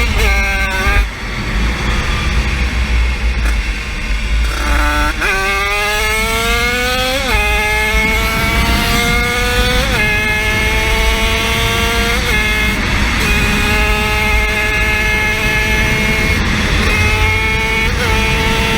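50cc motorcycle engine accelerating hard through the gears: its pitch drops and idles low for a few seconds, then climbs steeply and falls sharply at each of three gear changes, each climb slower than the last. It then holds a steady high pitch, with two short dips near the end.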